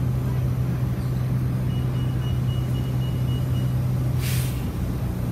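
City bus engine running with a steady low drone, heard from inside the passenger cabin. A rapid high electronic beeping runs for about two seconds, then about four seconds in comes a short sharp hiss of compressed air from the bus's air brakes, and the engine drone drops away after it.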